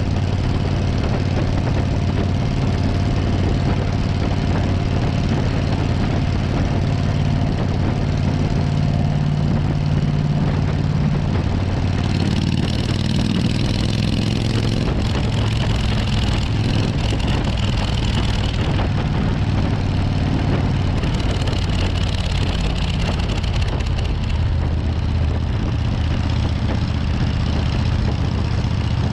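Suzuki Intruder 1400's V-twin engine running under way, with wind and road noise. The engine note shifts about twelve seconds in, and a higher hiss grows louder.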